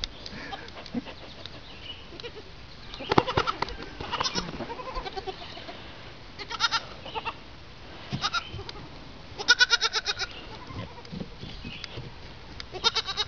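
Goat kids bleating: about half a dozen short, wavering bleats spaced a second or two apart, the longest and loudest about two-thirds of the way through.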